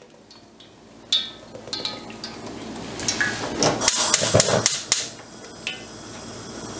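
Cooking oil glugging from a plastic bottle into a frying pan, with a run of sharp clicks between about three and five seconds in from a gas hob's igniter lighting the burner.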